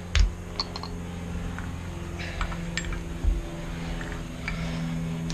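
Metal clinks and knocks as an MGB brake caliper and its freshly freed piston are handled, a sharp one just after the start and a few lighter ones later, over a steady low hum.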